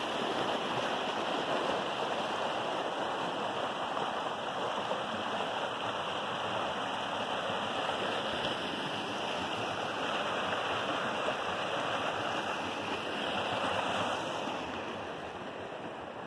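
Shallow stream water rushing and splashing over rocks in a steady wash, fading about two seconds before the end as it falls farther away.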